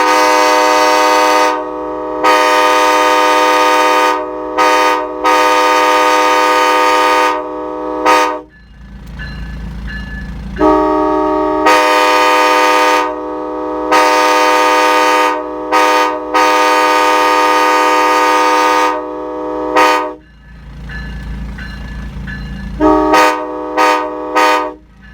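Multi-chime locomotive air horn sounding a steady chord, blown in the long-long-short-long grade-crossing pattern twice, then a few quick short toots near the end. A low engine rumble carries on between the blasts.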